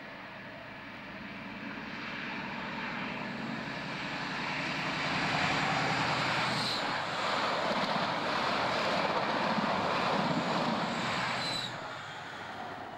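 InterCity 125 High Speed Train passing close at speed: the diesel power car's engine and the wheels on the rails build up over the first few seconds, stay loud, then fall away near the end.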